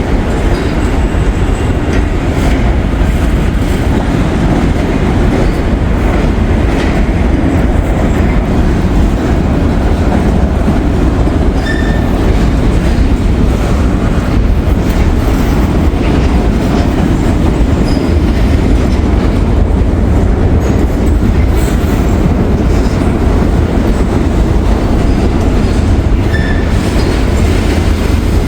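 Freight train cars rolling along the rails, a loud steady rumble with wheels clacking over rail joints and a couple of brief wheel squeals.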